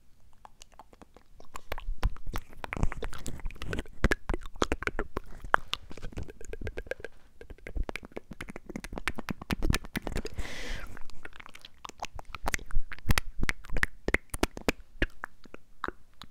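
Close-miked ASMR mouth sounds: a dense, irregular run of wet clicks, pops and smacks from the lips and tongue right against a small microphone, with a short breathy hiss about ten seconds in.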